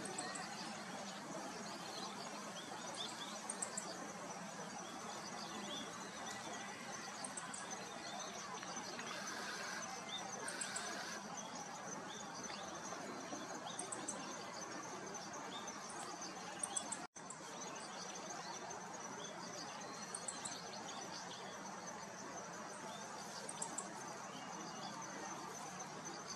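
Meadow bunting singing: short, clear high-pitched phrases repeated every few seconds, over a steady high drone of insects.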